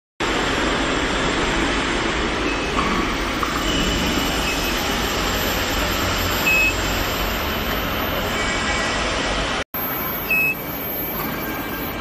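Steady, even machinery noise of a workshop floor, with two short high electronic beeps a few seconds apart in the second half, as from the induction heater's control panel. The sound cuts out for a moment shortly before the second beep.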